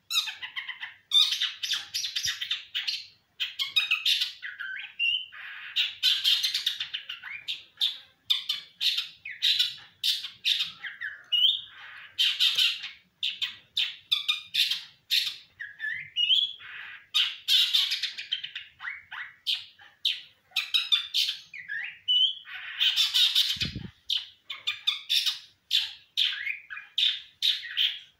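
Songbird singing a long run of harsh, chattering phrases in bursts every few seconds, with short rising whistled notes between them: a bird practising song, the kind of recording played to prompt other birds to sing. One brief low knock about 24 seconds in.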